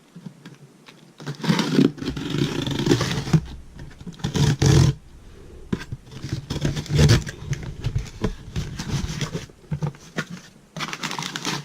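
A cardboard shipping box being opened and handled: scraping, tearing and rustling noises in several loud bursts, with low rumbling thumps.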